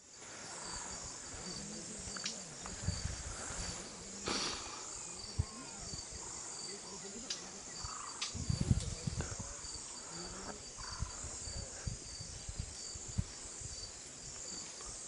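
Steady high-pitched chorus of insects such as crickets, with a regular pulsing chirp running through it. A few low thumps and sharp clicks break in, the loudest cluster of thumps about eight and a half seconds in.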